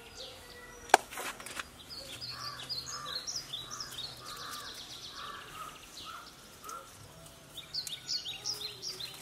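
Birds calling: a run of evenly repeated notes through the middle, and quick higher chirps near the end. About a second in there is a single sharp crack, the loudest sound.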